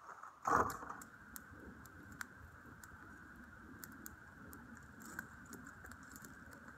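Campfire of dry twigs and branches burning, with a steady low rush and scattered sharp crackles and pops. A louder rustling burst comes about half a second in.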